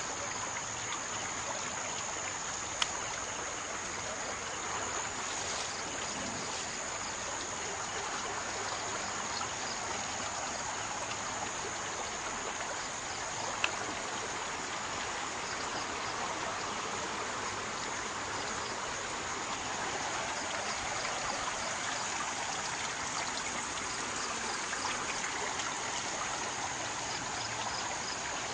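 Daduru Oya river in flood: a steady rush of fast-flowing floodwater, with a thin steady high-pitched whine above it. Two brief clicks stand out, one a few seconds in and one about halfway.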